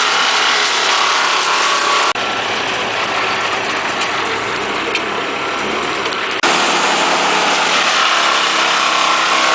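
Engines of work machinery running steadily. The sound changes abruptly about two seconds in, turning quieter and duller, then switches back about six seconds in.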